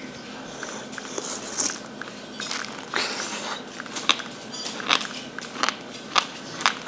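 Close-up chewing of a mouthful of braised sandfish roe, the sticky eggs popping between the teeth. From about halfway in there are sharp clicks, nearly one a second.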